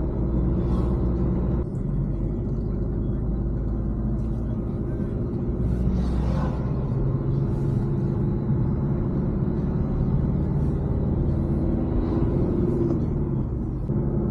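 Motor vehicle driving along a road: a steady low engine and road rumble.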